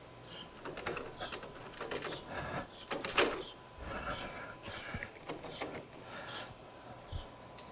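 Scattered small clicks and taps of door lock hardware being handled and screwed back together, with one louder clink about three seconds in.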